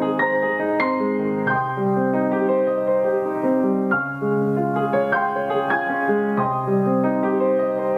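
Background music: a gentle piano piece, notes played at an even, unhurried pace.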